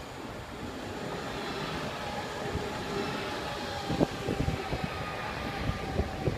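SBB ETR 610 electric tilting train rolling slowly past: a steady rumble with faint whining tones, and irregular low thumps from about the middle on.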